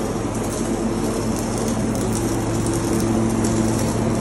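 Electric arc welding: the arc crackling steadily, over a steady low hum.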